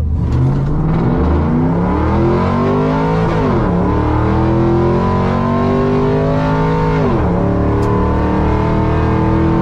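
Race truck's engine at full throttle on a drag-strip pass, heard from inside the cab. It climbs steadily in pitch, drops sharply at two upshifts, about three seconds in and again about seven seconds in, and climbs again after each.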